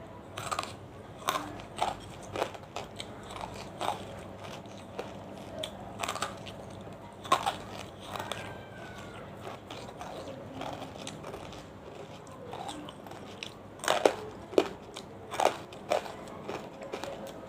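Close-miked biting and crunching of hard, chalky banslochan (tabasheer) pieces: sharp, irregular crunches with quieter chewing between them, and a quick run of louder crunches near the end.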